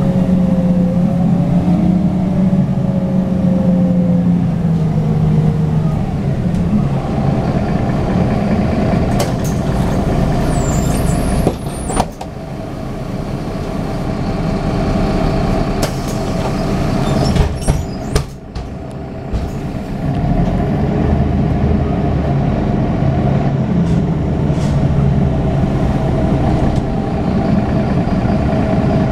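Inside a 2001 Mercedes-Benz Citaro O530 city bus under way: its OM906hLA six-cylinder diesel engine and ZF 5HP502 automatic gearbox running, the engine note falling in the first few seconds. It goes quieter around the middle with a few sharp knocks, then builds again as the bus pulls away.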